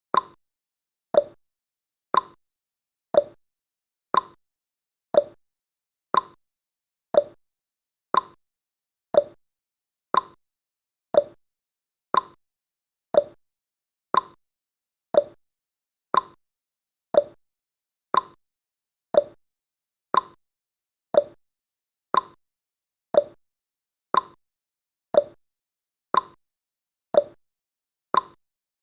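Countdown timer's tick sound effect: one short, sharp tick every second, steady and evenly spaced.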